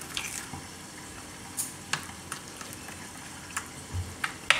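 A spoon stirring powdered sugar into thick strained yogurt in a bowl. It makes scattered clicks and a few short scrapes where it knocks and drags against the bowl.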